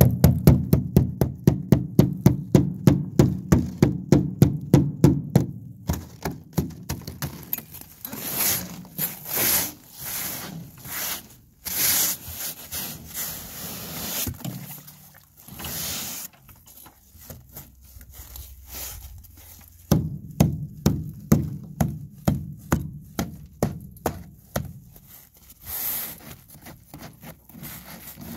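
Hand tool chipping thick freezing-spray ice off an aluminum boat's deck: rapid, even knocks at about four a second, then slower irregular knocks and scraping of loosened ice through the middle, and rapid knocking again near the end.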